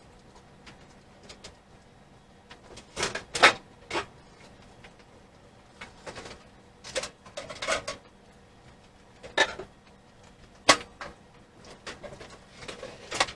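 Sharp clicks and clanks of tools, screws and the microwave's metal cover being handled as the cover's screws are taken out. The knocks come singly or in small clusters a second or two apart, the loudest about three and a half seconds in and again near eleven seconds.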